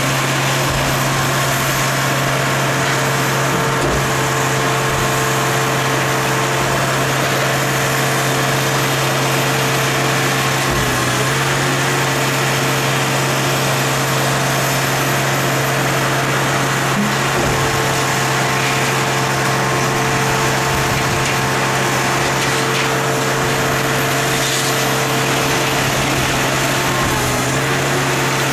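Engine powering the hydraulics of a scrap-metal processing machine, running steadily. Its pitch dips briefly twice, about a third of the way in and near the end.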